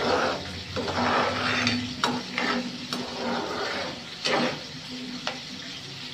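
Galunggong (round scad) frying in a pan, sizzling with louder surges of spitting now and then. There are a few sharp clicks on top of the sizzle.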